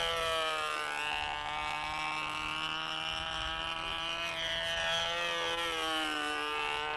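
A machine's drone with many overtones, its pitch sagging about a second in, holding steady, then rising and sagging again near the end.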